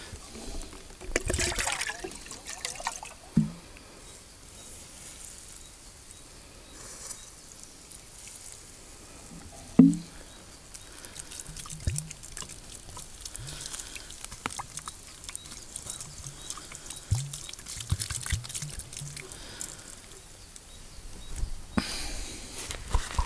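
Water being poured over the remains of a campfire to put it out, with scattered knocks and one loud thump about ten seconds in.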